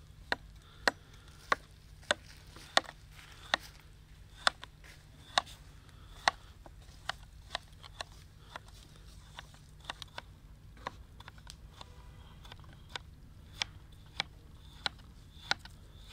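Knife chopping on a cutting board: single sharp strokes a little under two a second at first, growing slower and more uneven after about seven seconds, with a short pause near the middle before the chopping resumes.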